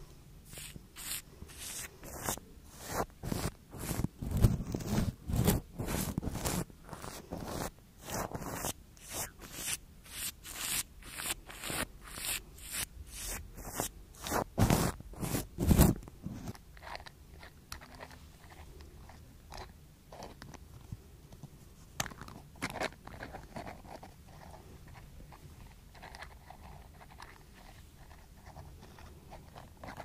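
Brushes stroked quickly across a plastic-wrapped Blue Yeti microphone, crinkly strokes at about two a second. About halfway through the strokes turn much softer, with scattered light ticks.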